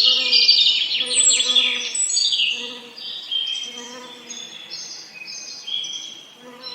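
Songbirds singing and chirping, several at once, densest and loudest in the first two seconds. Beneath them, bees buzz on and off with a low hum.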